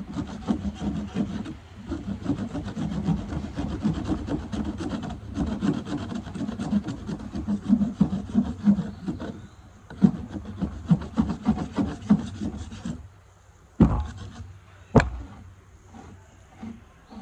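Knife scraping shavings off a piece of wood for kindling, in quick rasping strokes that stop about 13 seconds in, followed by two sharp knocks about a second apart.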